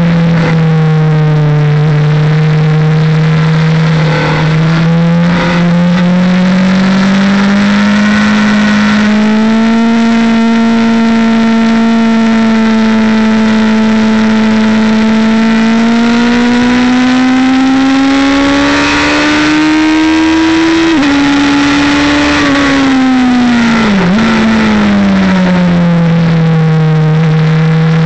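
Motorcycle engine heard from on board at speed, held in third gear through corners: a steady engine note that climbs slowly through the middle, then drops in two sudden steps a few seconds apart near the end and settles lower as the bike slows.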